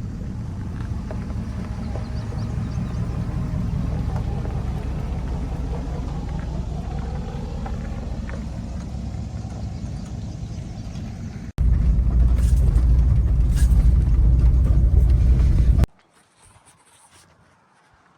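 A vehicle's engine and driving rumble, steady with faint rising and falling pitch. About 11 s in it cuts abruptly to a louder, heavier rumble that stops suddenly near the end.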